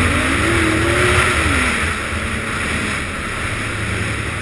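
Yamaha RS Vector GT snowmobile's four-stroke engine running under throttle as it crosses snow, heard from on board with a steady rushing noise. Its pitch rises and then sinks away over the first two seconds.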